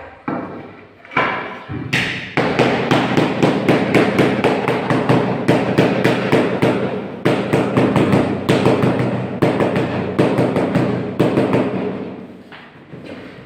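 Mallet tapping tiles down into their bed: many quick blows, several a second, starting in earnest about two seconds in and dying away near the end.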